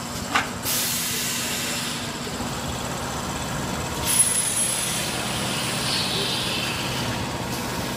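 Pneumatic cylinders and valves on an automatic pail filling and lid-pressing machine: a sharp click, then hisses of released compressed air about a second in, again about four seconds in with a thin high whistle, and near the six-second mark, over a steady machine hum.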